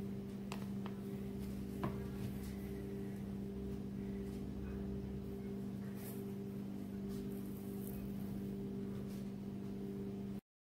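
A steady low hum, with a few faint light clicks in the first two seconds; the sound cuts off abruptly just before the end.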